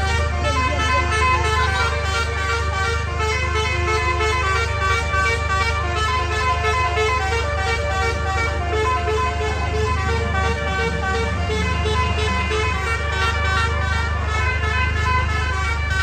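Telolet horn on a tour bus playing a tune of quickly changing notes, over a steady low hum.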